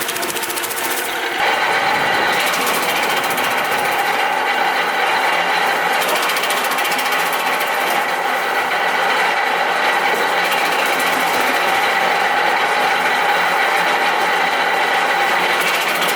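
REMET RE-80 electric wood chipper with a 5.5 kW motor and four knives running steadily. About a second in, the sound steps up louder and stays there.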